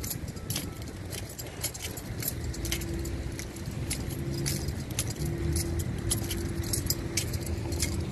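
Light, irregular metallic jingling and clicking while walking, over the low rumble of car engines; a steady hum sets in about two seconds in.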